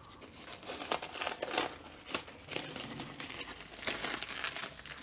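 Plastic bag crinkling and crackling as it is pulled open and peeled off by hand, in a run of irregular crackles.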